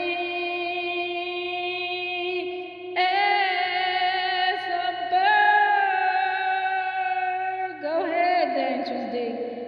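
A voice singing long held notes, each lasting a few seconds, that step to a new pitch about every two to three seconds.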